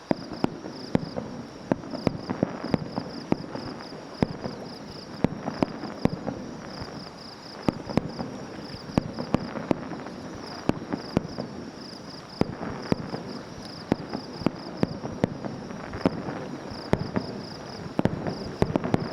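Fireworks going off: a rapid, irregular run of sharp bangs and crackling pops in clusters, with an insect chirping in steady pulses underneath.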